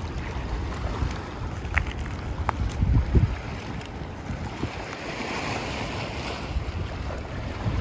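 Wind buffeting the microphone in gusts over the steady rush of the river, with a few faint clicks.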